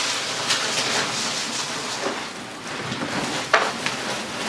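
Rock salt pouring from a bag into a water softener's brine tank: a continuous rushing hiss of crystals sliding and rattling, with a sharper clatter about three and a half seconds in.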